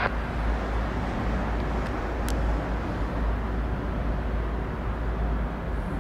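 Steady outdoor background rumble of distant traffic, with one brief tick about two seconds in.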